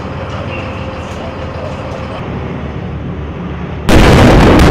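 Steady low rumble of a T-72 tank's V-12 diesel engine running. Near the end it breaks suddenly into a much louder din with rapid sharp cracks, like close gunfire.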